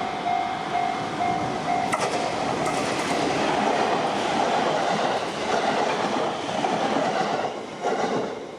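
An electronic level-crossing warning bell rings in quick, evenly repeating beeps. From a sharp click about two seconds in, a passing train covers the bell with loud wheel and rail noise, which eases off near the end.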